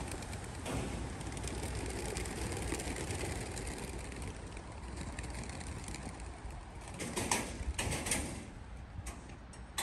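Large flock of birds flying overhead against a steady low outdoor rumble, with a cluster of short, sharper bursts about seven to eight seconds in.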